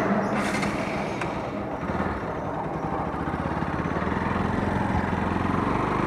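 Motorcycle running along a road: steady engine and road noise with wind buffeting the microphone.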